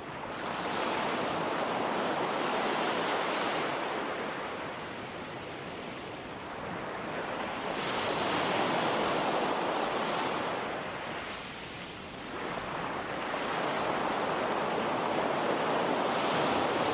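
Ocean surf: waves breaking and washing in, a rushing noise that swells and eases three times, each surge building over a second or two and lasting several seconds.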